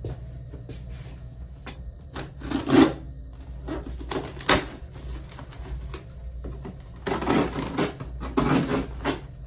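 A cardboard shipping box being handled and opened: scraping, rustling and tapping of cardboard in short irregular bursts, loudest about three seconds in and again a couple of seconds before the end.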